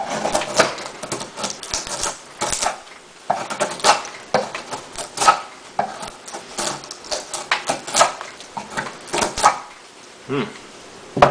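Leatherman multitool knife blade whittling wood: a quick, irregular run of sharp snapping and scraping cuts, a few each second.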